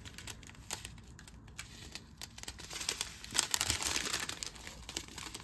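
Small plastic bags of diamond-painting drills crinkling as they are handled, a dense crackle that grows louder about halfway through.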